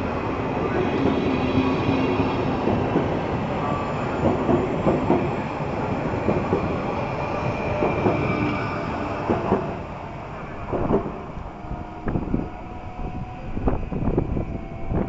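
Stadler FLIRT3 electric multiple unit (PKP Intercity ED160) rolling past, with wheels clicking over rail joints. Its noise fades about ten seconds in as it pulls away, leaving wind buffeting the microphone in gusts.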